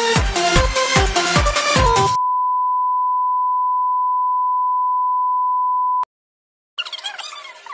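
Electronic dance music with a steady beat cuts off about two seconds in. A single steady high beep tone replaces it and holds for nearly four seconds, ending with a click. After a brief silence, quieter music comes in near the end.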